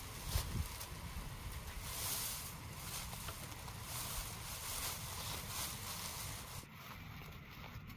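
Dry grass stalks rustling and crackling as they are handled, pulled and sorted by hand, over a low rumble.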